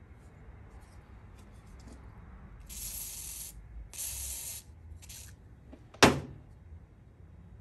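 Aerosol spray can hissing in three short bursts into a carburetor whose float is stuck, then a single sharp, loud snap about six seconds in.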